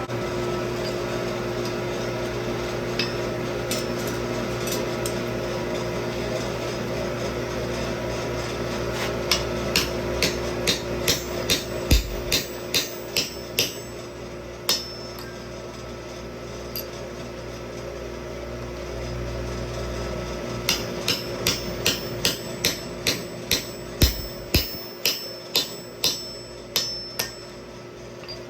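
Hammer blows on hot high-carbon tool steel at the anvil, sharp and ringing, in two runs of about a dozen strikes each at two to three blows a second, with a few scattered strikes before them. A steady mechanical hum runs underneath.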